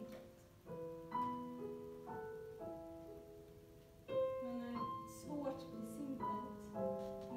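Piano playing a slow, gentle accompaniment of chords and single notes, a new note or chord struck about every half second to a second, each left to ring and fade.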